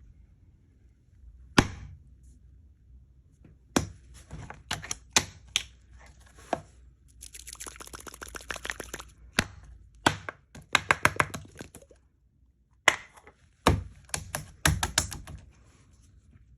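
Putty being squeezed and pulled in the hands, giving sharp snaps and pops in clusters, with a run of fast crackling in the middle.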